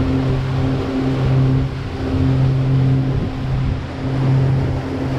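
A water taxi's engine running steadily under way, a constant-pitch hum that swells and fades about once a second, over the rush of water and wind.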